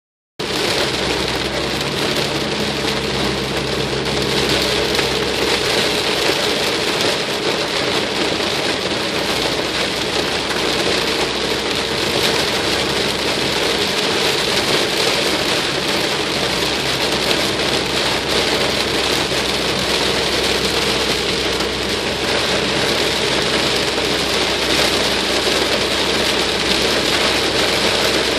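Heavy tropical rain falling on a car's roof and windshield, heard from inside the cabin: a dense, steady hiss with a low road and engine hum underneath.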